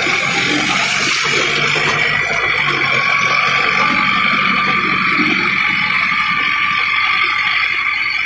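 Mahindra Arjun Novo 755 DI 4WD tractor puddling a flooded paddy field, its rear rotavator churning water and mud in a steady rush of splashing, with the tractor's engine running underneath. A steady high whine sits over it throughout.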